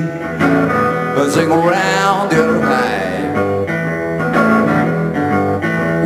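Acoustic guitar played in a blues groove, with a man's voice singing briefly.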